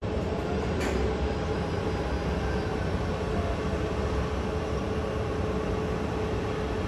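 Jet airliner engines running: a steady low rumble with a faint steady whine over it.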